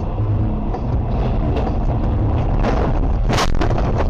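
Car driving through heavy rain on a soaked road, heard inside the cabin as a steady loud rumble of tyres and engine. A bit over three seconds in, a sudden loud rushing hiss as a sheet of road spray hits the windscreen.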